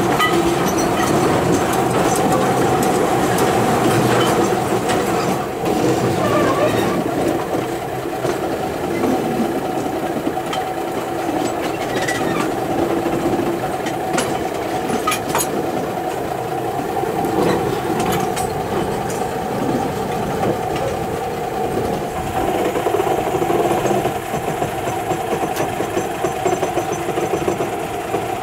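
Small diesel locomotive's engine running steadily while it travels along narrow-gauge track, with occasional sharp clicks of wheels over rail joints.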